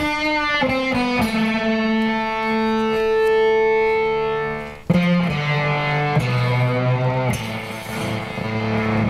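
Electric guitar played through Fairfield Circuitry effects pedals: a few picked notes, one held ringing for about four seconds, then a new note struck about five seconds in and lower notes stepping down.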